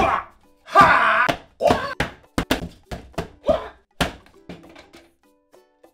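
A flat cardboard piece whacked and scraped hard against a taped-shut cardboard box: a fast string of thunks and rasps that stops about four and a half seconds in.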